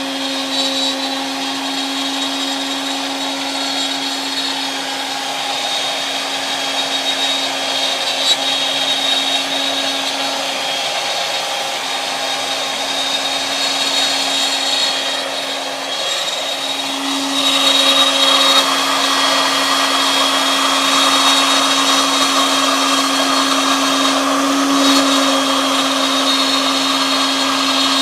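CNC router spindle running at a steady high speed with a constant whine, over a rushing cutting noise that grows louder and coarser about 17 seconds in.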